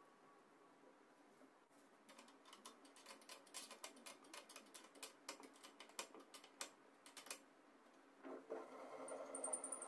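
Faint, quick light clicks and taps for several seconds, then a low steady hum with a faint high whine joining near the end.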